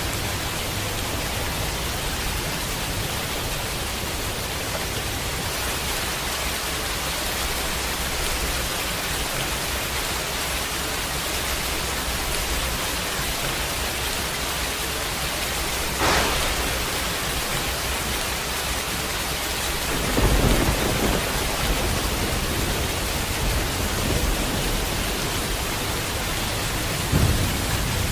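Steady rain hissing throughout a thunderstorm. About halfway through comes a sharp crack of thunder, a few seconds later a longer, louder rumble of thunder, and near the end another thunderclap.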